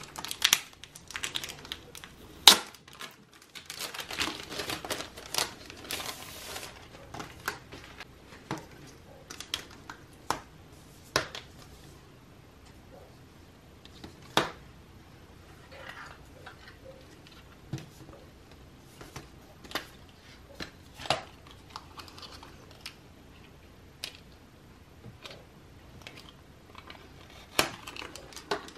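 Plastic cellophane wrapping crinkling and tearing as it is pulled off a sealed cardboard folder, densest in the first six or seven seconds, followed by scattered taps and clicks of the cardboard being handled.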